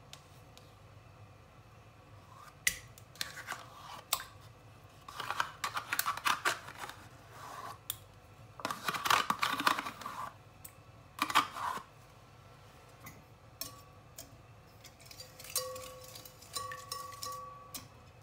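A metal utensil scraping yogurt out of a plastic yogurt pot into a glass bowl. It comes in several spells of scratchy scraping and clicking, with short quiet gaps between them.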